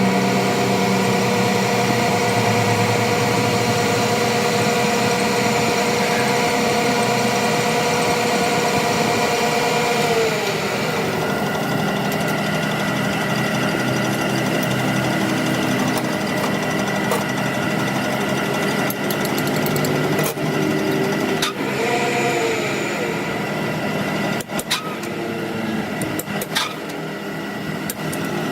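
A machine motor running steadily with a whine. About ten seconds in, its pitch drops as it slows. In the second half, sharp clicks and knocks of metal work are heard.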